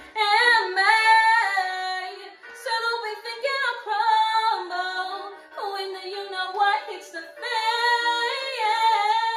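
A woman singing a musical-theatre song solo with no accompaniment, in sung phrases with short breaks, ending on a long held note.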